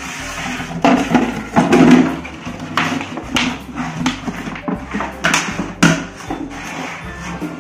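Empty plastic jar knocking and scraping on a concrete floor as a Labrador puppy pushes it along with its nose: a run of irregular clatters and knocks, the loudest about two seconds in.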